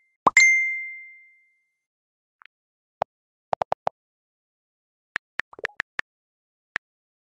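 Phone text-message notification ding: one sharp chime about a second in that rings out and fades over roughly a second. Later come several brief, soft clicks in two short clusters.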